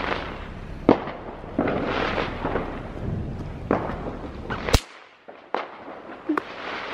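Bang snaps (paper-wrapped snappers) cracking one at a time as they are thrown down onto paving stones. There are several sharp snaps at uneven intervals, the loudest about three-quarters of the way through.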